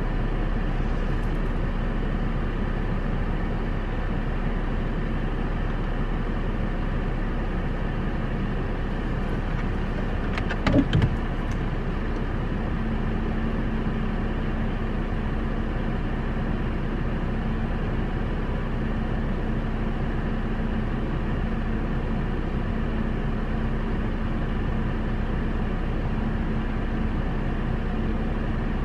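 Steady running noise of a stationary car heard from inside its cabin, an even hum with a faint steady tone that comes in about halfway through. A short cluster of clicks sounds about ten seconds in.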